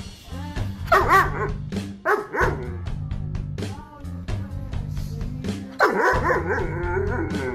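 German Shepherd vocalizing in wavering, pitched whine-like calls three times: briefly about a second in, again about two seconds in, and a longer call near the end. Background music with a steady beat plays underneath.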